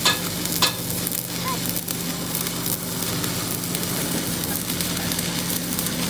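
Electric arc welding: the arc crackles and sizzles steadily, with two sharp pops in the first second and a low steady hum underneath.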